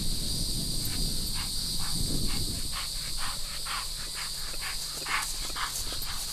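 Insects droning steadily in a summer field, a constant high buzz. From about a second in, a run of short soft knocks comes about twice a second.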